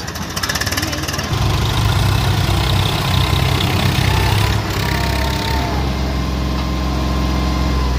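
Tractor diesel engines running hard under load while towing on a rope, revving up about a second in and then holding a loud, steady note.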